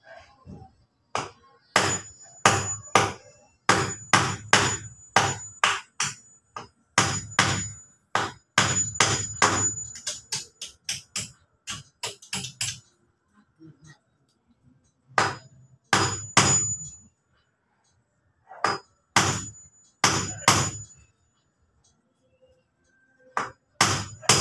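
Hammer driving nails into wooden boards: runs of quick blows, about two a second, many with a high metallic ring, broken by pauses of a second or more.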